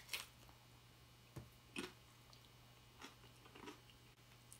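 Faint chewing of a hard-shell taco: a handful of brief, scattered crunches and mouth sounds over quiet room tone.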